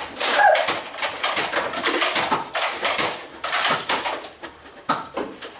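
Nerf foam-dart blasters firing in a rapid, irregular run of sharp clacks and knocks, with a brief shout just after the start.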